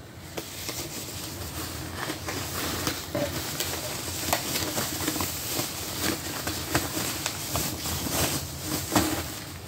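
Packaging rustling and crinkling with many small clicks and taps as a lamp is unpacked, over the steady noise of an electric fan.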